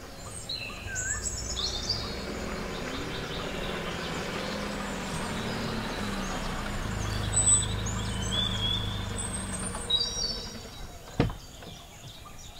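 Tata Nexon SUV driving slowly over grass and pulling up, its low engine hum building and then fading out about ten seconds in. A single sharp click, the car door opening, follows a second later, with birds chirping throughout.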